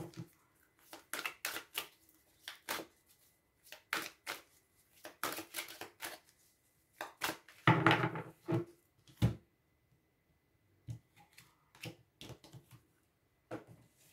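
An oracle card deck shuffled by hand: bursts of quick card flicks and slaps, busiest in the first nine seconds and sparser near the end.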